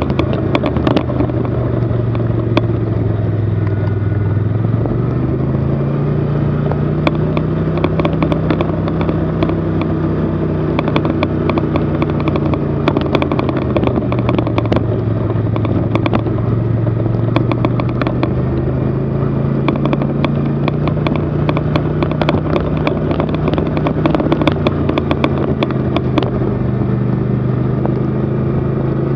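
Snowmobile engine running at low trail speed, its pitch slowly rising and falling with the throttle, over a constant rattling clatter.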